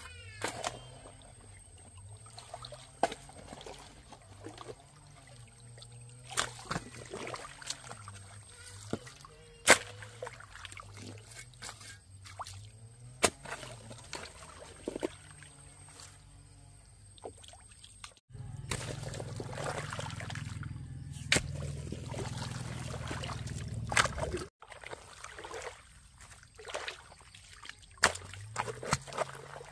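Shallow pond water sloshing and splashing, with many short sharp splashes over a faint low wavering hum. A louder steady rush of noise cuts in about 18 seconds in and stops abruptly about six seconds later.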